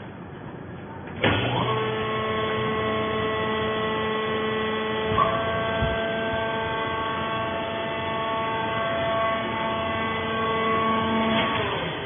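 Vertical hydraulic baler's motor-driven hydraulic pump starting abruptly about a second in and running with a steady whine of several pitches as the rams lift the pressing platen. A brief click and small change of pitch come about halfway, and the pump stops just before the end.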